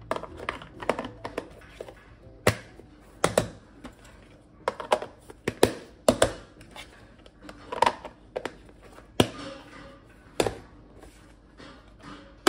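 Irregular clicks and knocks of Marna plastic frozen-rice containers and their lids being closed and stacked on a glass hob, mixed with the noise of a dog licking its bowl.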